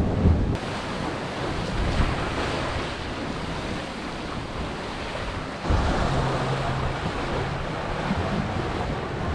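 Wind buffeting the microphone over the rush of waves and water along the hull of a Mini 6.50 sailboat under way. The sound changes abruptly a little after half a second in and again about halfway through, louder from then on.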